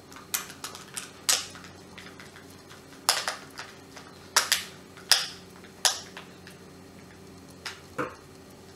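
Irregular sharp clicks and small knocks, about a dozen, from a screwdriver driving screws into a hand blender's hard plastic housing while the body is handled. Near the end the metal screwdriver is set down on the table. A faint low hum runs underneath.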